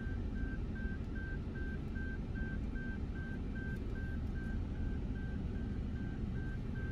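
Moving car heard from inside the cabin: a steady low road and engine rumble. Over it runs a high electronic beep repeating evenly about three times a second.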